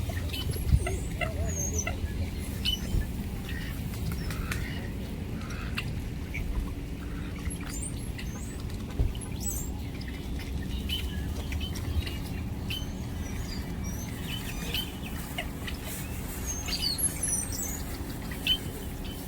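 Many birds chirping and calling in short, scattered high notes, over a steady low rumble.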